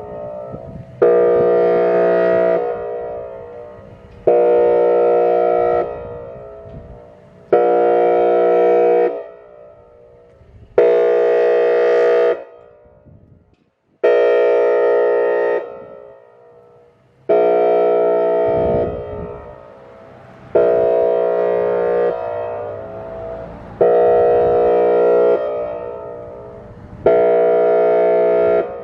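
Whelen Vortex R4 electronic outdoor warning siren sounding its airhorn tone: a series of loud blasts at one steady pitch, about one every three seconds. Each blast starts abruptly and fades away before the next.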